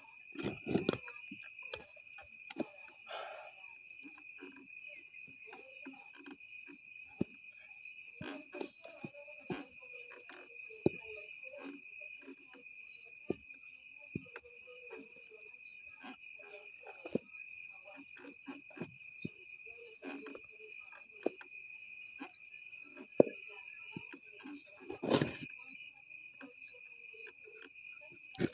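Crickets trilling steadily in a night-time insect chorus, over irregular knocks and scrapes of a wooden spoon stirring thick porridge in a metal pot, with a louder scrape near the end.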